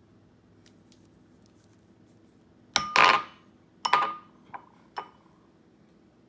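Tin can knocking against the rim of a ceramic bowl, about five ringing clinks about three to five seconds in, the first pair loudest. The upturned can is being knocked to shake out beans packed inside.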